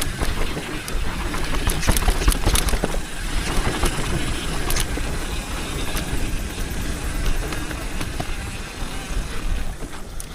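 Mountain bike rolling slowly over a dirt trail on an almost flat rear tyre, with the rim close to the ground: steady tyre and trail noise under a low rumble, with scattered clicks and knocks, most of them a couple of seconds in.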